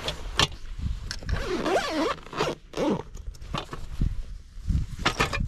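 Zipper on a Crashpad swag's carry bag being pulled closed in a series of short strokes, some with a wavering pitch, as the packed swag is finished off.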